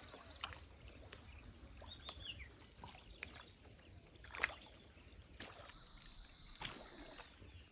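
A topwater fishing lure being drawn across calm water, with faint water sounds and a few sharp ticks, the loudest about four and a half seconds in. A short falling chirp comes about two seconds in.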